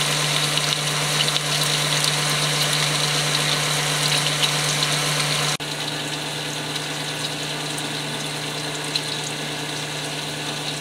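Oil sizzling and crackling as tortilla triangles fry in a pan into low-carb tortilla chips, over a steady low hum. The sound drops a little in level about halfway through.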